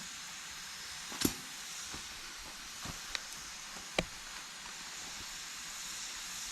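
Wood campfire burning with a steady hiss and crackle, and three sharp pops from the burning wood: the loudest a little over a second in, two smaller ones around three and four seconds in.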